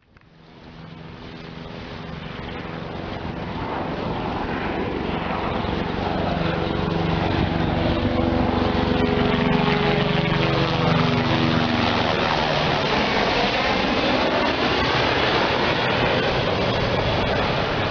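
Helicopter making a low pass, its rotor and engine growing louder over the first several seconds. The engine tones drop in pitch as it goes by, around ten to twelve seconds in.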